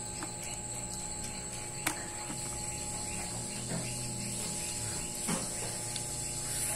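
Steady high-pitched whine in the background, with scattered light clicks and knocks and one sharp click about two seconds in.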